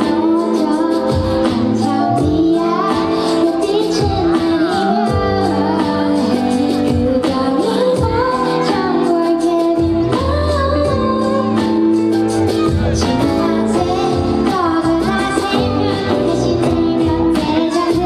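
Live pop song: a woman sings into a handheld microphone over backing music with a steady beat, played loud through the stage speakers.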